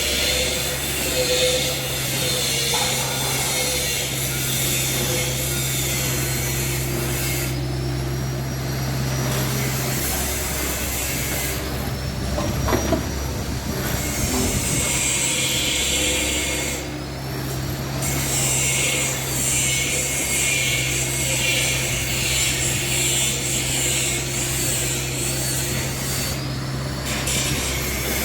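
Excavator's diesel engine running steadily under working load, with a thin high hydraulic whine that rises and falls as the machine moves. A single sharp knock comes about twelve seconds in.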